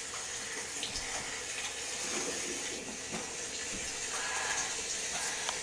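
Steady hiss of rain, a storm sound effect, that starts abruptly and cuts off suddenly near the end.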